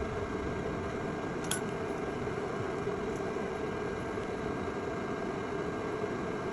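Steady whir of a small workbench fan, with one faint tick about a second and a half in.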